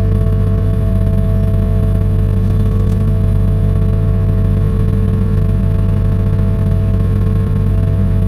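Caterpillar 305 mini excavator's diesel engine running steadily, a low drone with a steady whine above it that drops out briefly twice.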